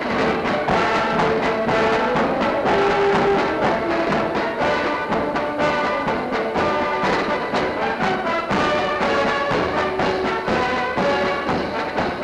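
A Marine military band playing a march: brass instruments carry the tune over a steady drumbeat.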